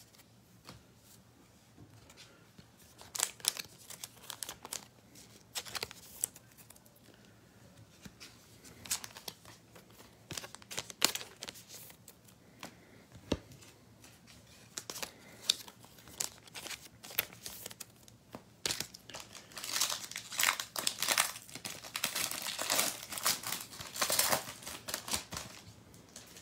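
A trading-card pack wrapper being crinkled and torn open, with scattered light crackles and taps throughout; the crinkling is densest for several seconds near the end.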